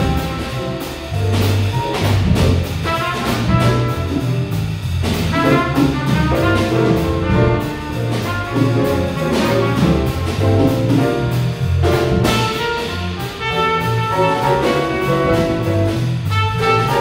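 Jazz quartet playing: trumpet lead over grand piano, bass guitar and a drum kit with cymbals.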